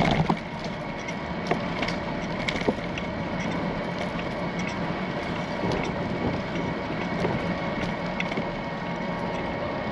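Bicycle on the move: steady tyre-rolling and wind noise with scattered small clicks and rattles.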